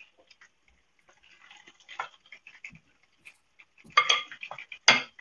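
Kitchen utensils knocking and scraping against cookware: scattered light clinks and a short scrape, then two loud clatters about four and five seconds in.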